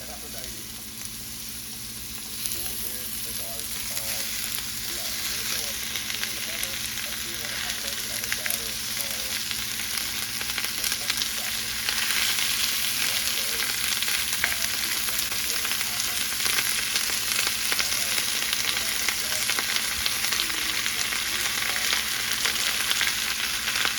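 Food frying in a hot pan: a steady sizzle with fine crackling that grows louder, stepping up about halfway through.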